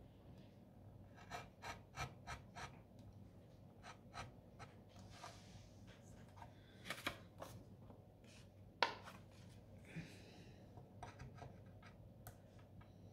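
Faint scratching and light clicks of a slit being cut into cardstock, with the tools set down and picked up. There is a quick run of light ticks about a second in, and one sharper click about two-thirds of the way through.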